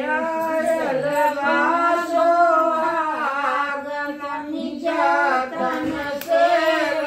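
Women singing a traditional Indian wedding folk song (shadi ke geet) unaccompanied, with long, drawn-out sung notes.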